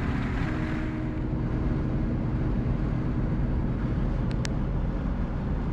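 Steady road and engine noise inside a service truck's cab cruising at highway speed, with a low hum under a wash of tyre and wind noise.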